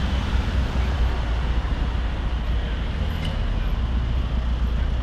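A tractor's engine running steadily as it drives along, heard from on board: a constant low rumble with no change in speed.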